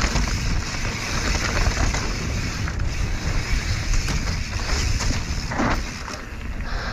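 Wind rumbling on the action camera's microphone and knobby tyres of an enduro mountain bike rolling fast over a dry dirt singletrack, with the bike's chain and parts rattling over the bumps.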